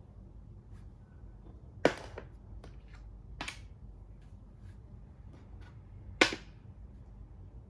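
Plastic makruk (Thai chess) pieces being set down on the board: two sharp clacks about four seconds apart, with a softer knock between them and a few light taps as pieces are handled.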